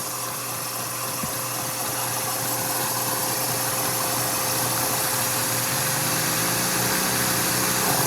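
Lego motor straining to start up, running with a steady whirr that grows steadily louder. About six seconds in its pitch rises as it picks up speed.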